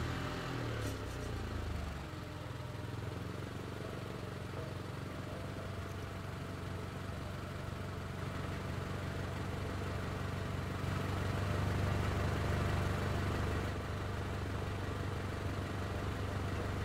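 An engine running steadily at low revs, swelling a little louder for a few seconds past the middle.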